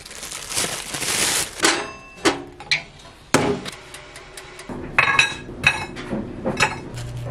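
A plastic bread bag rustles, then comes a string of sharp knocks and clinks as a toaster oven and a plate are handled while making toast. A low steady hum starts near the end.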